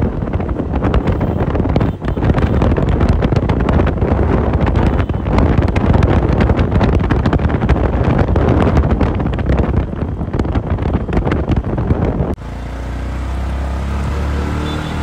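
Wind buffeting the microphone over road and engine noise while riding in a moving vehicle. About twelve seconds in, the sound cuts abruptly to a steadier low engine hum.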